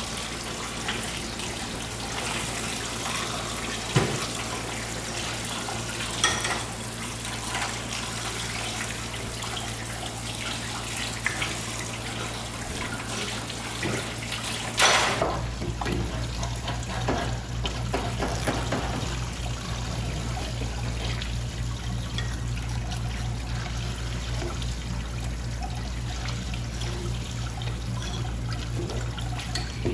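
Kitchen tap running steadily onto a wet wooden cutting board and into a stainless steel sink, with a few sharp knocks as a knife works an eel pinned on the board.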